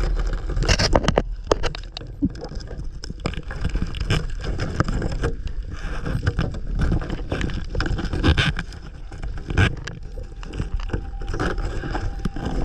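Underwater sound picked up by a freediver's camera: a constant low rumble of water against the housing, with many irregular clicks and knocks.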